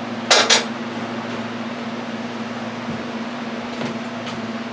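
Zero-turn mower engine running at a steady idle, with two brief sharp knocks close together about half a second in.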